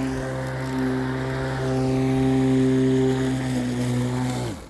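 Ryobi 13-inch 18V cordless lawnmower running with a steady electric hum. Near the end it is switched off and the motor and blade spin down, the hum falling in pitch and dying away.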